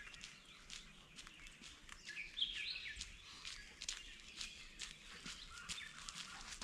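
Small birds chirping, with a run of chirps about two seconds in, over scattered light clicks and crackles.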